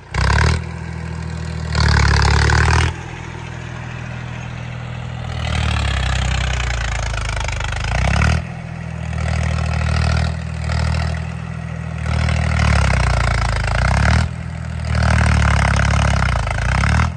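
Tractor diesel engine revving in repeated surges, the throttle opened hard and eased off again and again as it strains to pull a trolley stuck in mud.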